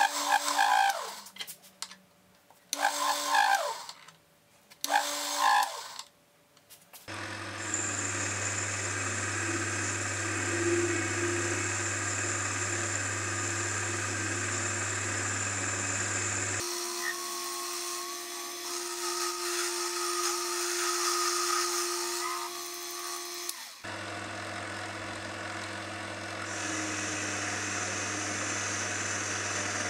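Mini metal lathe running and cutting aluminium bar stock, in a string of short clips that switch abruptly, with brief silent gaps in the first few seconds. A steady machine hum and tones run under the cutting.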